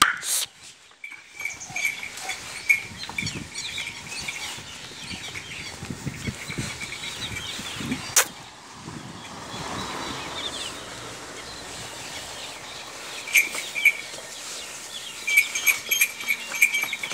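Birds chirping and twittering, with a sharp click about eight seconds in. Near the end come short bursts of bright jingling from the bells on a walking ox's ankles.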